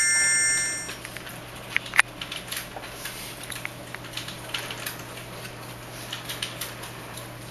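An electronic chord of several clear tones from a mobile phone's speaker fades out within the first second. Scattered light clicks and taps follow, one sharper click about two seconds in, over a steady low hum.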